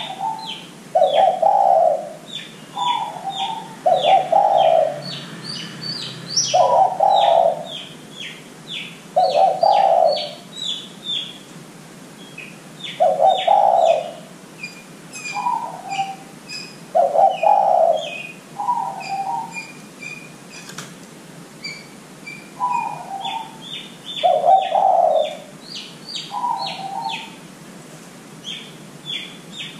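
Spotted dove (derkuku) cooing in repeated phrases, a short higher note followed by a lower, fuller coo, every one to two seconds. Quick high chirping of smaller birds runs throughout.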